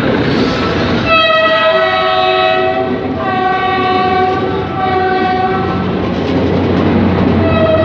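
Philippine National Railways commuter train's horn sounding three long blasts, each a chord of several steady tones, with a fourth starting near the end, over the steady low rumble of the train.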